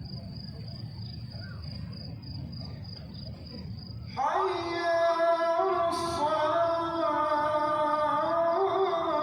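Adhan (Islamic call to prayer) from Masjid an-Nabawi: after a few seconds of low ambient murmur with a faint steady high tone, a male muezzin's voice comes in about four seconds in, chanting a long, drawn-out melodic phrase over the loudspeakers.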